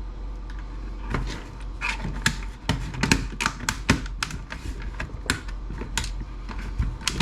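Quick, irregular clicks and taps on the plastic case of a Lenovo ThinkPad docking station being worked apart by hand, starting about a second in.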